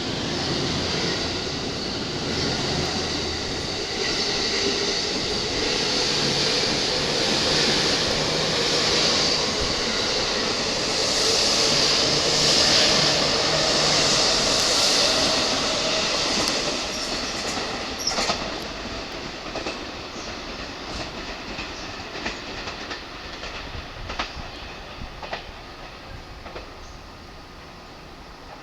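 A 15-car E231/E233-series electric commuter train pulling away from the platform. Its traction motors give a tone that rises in pitch as it gathers speed, with the wheels clattering over the rail joints. After about 18 seconds the train fades into the distance, leaving only scattered clicks.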